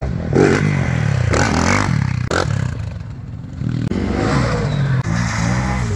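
Side-by-side UTV engine revving up and down, with several short bursts of scraping and clatter in the first few seconds.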